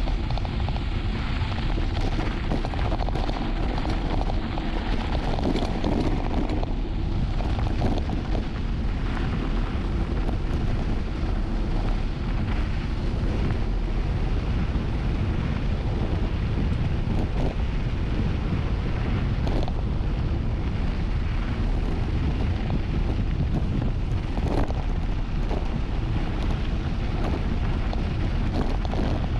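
Steady wind buffeting on the camera microphone during a mountain-bike descent over bumpy ground, with occasional sharp knocks and rattles from the bike.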